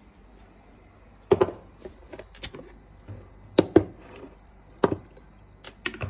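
Glass food container with a snap-lock plastic lid: the lid's clips snapping open and the bowl and lid knocking down on a countertop, a handful of sharp clicks and clacks.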